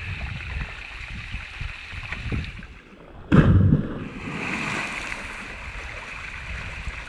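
Steady rush of water in a waterfall pool, then about three seconds in a single heavy splash as a person jumping from about 5 meters lands in shallow, belly-deep water, with a hiss of water for a second or so after.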